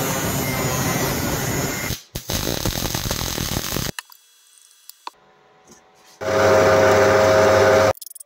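Steel being ground on an abrasive wheel, a rough loud grinding noise for nearly four seconds with a brief break about two seconds in. A quieter spell with a few light clicks follows, then about a second and a half of a power tool running steadily with a steady hum before it cuts off.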